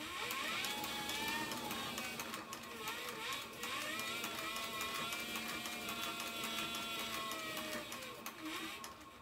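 Cowboy CB-4500 leather sewing machine stitching leather: rapid needle clicking over a motor whine that rises, dips about three seconds in, picks up and holds steady, then falls away near the end. Its bobbin winder is winding a bobbin while it sews.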